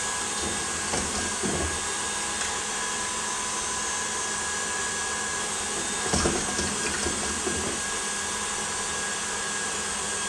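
KitchenAid stand mixer running at high speed, beating a thick cream-cheese cream in its steel bowl: a steady motor whir with a steady high tone. A brief knock about six seconds in.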